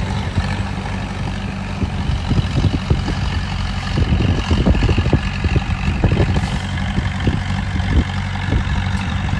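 Heavy construction machine's diesel engine running steadily, with a run of irregular knocks and clanks from about two seconds in until near the end.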